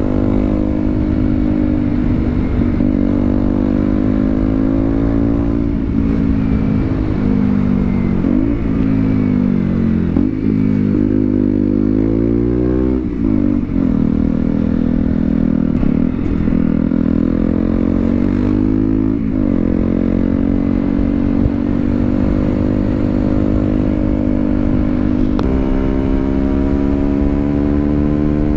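KTM Duke 125 single-cylinder four-stroke engine under way, its revs rising and dropping several times, then jumping up abruptly near the end and climbing steadily.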